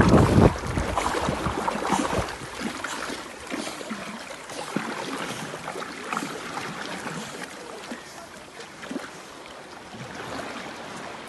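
Water splashing and lapping around a golden retriever paddling as it swims, irregular small splashes that are loudest in the first second and then grow gradually softer.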